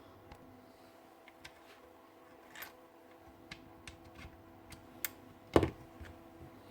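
Scattered light clicks and ticks from handling the gearbox parts of a Bosch GRW 11E mixing drill, with one louder knock about five and a half seconds in, over a faint steady hum.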